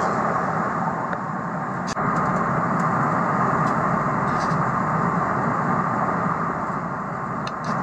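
Steady jet airliner cabin noise in cruise: the constant rush of engines and airflow, with a few faint clicks.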